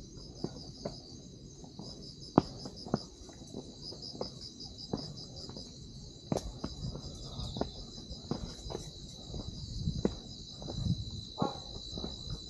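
Night insects calling continuously: a high, rapidly pulsing trill over a steady high tone. Irregular footsteps on the trail sound underneath.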